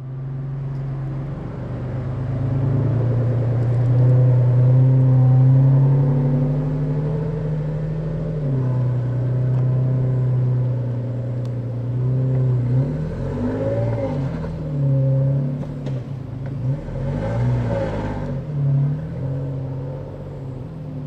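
Nissan 4x4's engine pulling in low gear as the vehicle crawls up a trench with its differential lockers engaged: a steady drone at first, shifting pitch about a third of the way in, then rising and falling repeatedly in the second half as the throttle is worked over the ruts.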